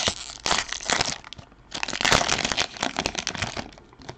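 Foil wrapper of a 2017-18 Upper Deck Series 2 hockey card pack crackling and crinkling as it is torn open by hand, in two spells, the second about two seconds long.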